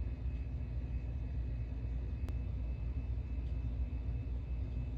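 Steady low mechanical rumble with a faint steady hum, and one faint click a little over two seconds in.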